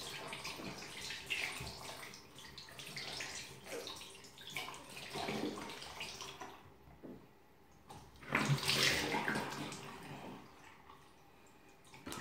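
Hands working and splashing water in a bathroom washbasin, uneven and noisy; it dies away briefly about six and a half seconds in, then comes back louder about eight seconds in.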